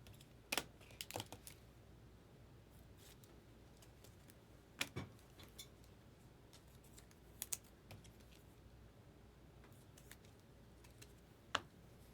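Near silence with scattered light clicks and taps, about a dozen in small clusters, the sharpest one near the end.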